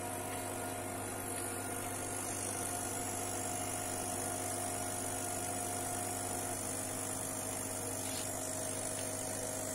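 Videojet 1510 continuous inkjet printer running its clean stop-jet flush: a steady machine hum with a few faint steady tones over it.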